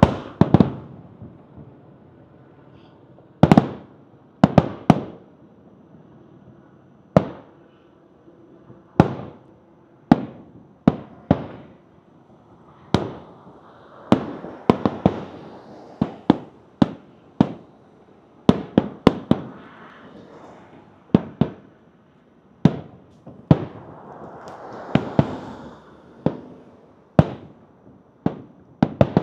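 Aerial fireworks shells bursting: a long string of sharp bangs, about two dozen, each trailing a short echo, irregularly spaced and sometimes in quick pairs or triples. A softer hissing noise swells between the bangs around the middle and again near the end.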